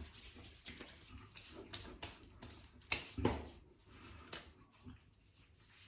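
Faint clicks and light knocks of a bottle of aftershave balm being handled and opened, with a somewhat louder knock about three seconds in.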